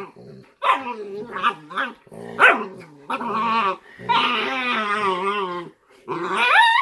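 A Cane Corso mother and her puppy wrestling and vocalizing during rough play as she disciplines him. There is a string of short pitched calls, then one long wavering call from about four seconds in, and a rising call near the end.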